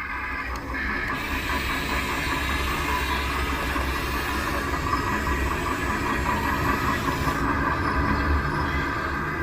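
A vehicle or machine motor running steadily, with a low rumble, a hiss and a steady whine.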